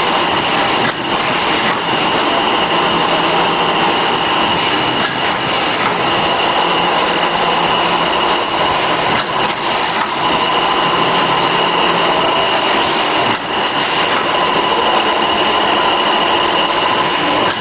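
VFS7300FS vertical form-fill-seal packaging machine running, feeding printed film through: a loud, steady mechanical noise with two steady whining tones, one mid-pitched and one high.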